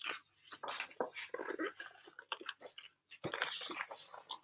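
Pages of a large hardcover picture book being turned and handled: irregular soft paper rustles and crackles.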